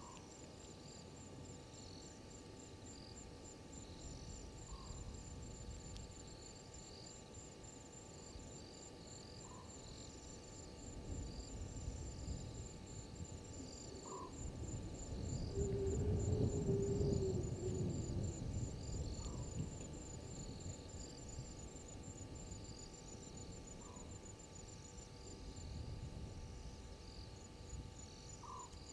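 Night insects calling: a steady, finely pulsed high trill with scattered lower chirps, and a short call that repeats about every five seconds. In the middle a low rumble swells for several seconds, with a brief low tone at its loudest.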